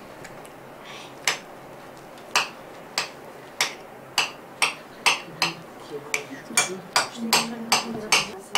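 A metal utensil tapping against a plate of food in a series of sharp clicks. A few come spaced out at first, then they settle into a quicker run of about two or three a second.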